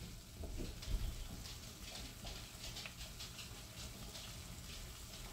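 Pot of water boiling, a faint steady bubbling with small scattered ticks, and a light knock about a second in.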